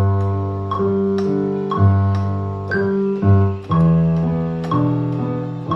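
Piano sound from a digital keyboard playing slow sustained chords over a bass note, a new chord struck about once a second.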